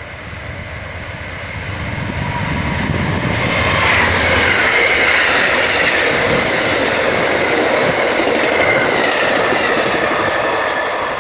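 Amtrak passenger train led by a P42DC diesel locomotive passing at speed: a low engine rumble builds over the first few seconds, then loud wheel and rail noise from the passing cars holds, with a faint tone that sinks slightly in pitch.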